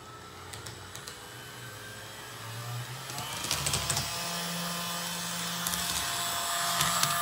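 Walthers Trainline GP15-1 HO-scale model diesel locomotive running at full throttle. Its electric motor whirs with a whine that rises in pitch as it speeds up, with sharp clicks from the wheels on the track, and it gets louder as it comes closer.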